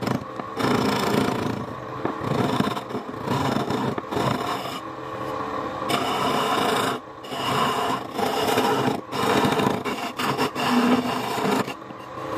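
Hand-held turning tool cutting and scraping wood from a mug spinning on a lathe: a rough, dense scraping noise broken by several brief pauses.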